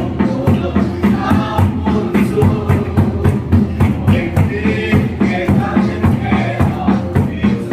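Group of people singing a hymn together over a steady, driving drum beat.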